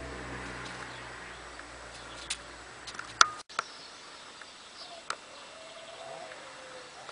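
Domestic pigeons cooing softly in a loft, with a few sharp clicks in the first half.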